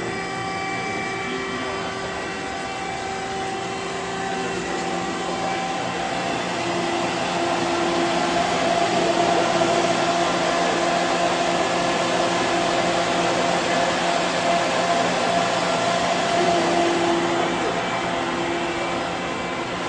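Okuma MF-46VB vertical machining center running: a steady mechanical whirring hum with several held tones, growing slightly louder in the middle.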